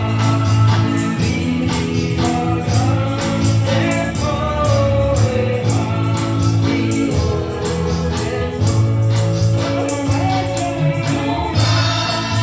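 Church worship music: electronic keyboards and a drum kit playing a gospel song with voices singing, over sustained bass notes and a quick, steady percussion beat.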